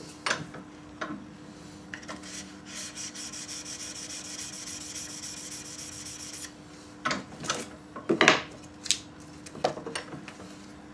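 Steel chisel rubbed back and forth on abrasive paper on the bench, a steady scraping hiss for a few seconds, followed by several sharp knocks and clatters near the end.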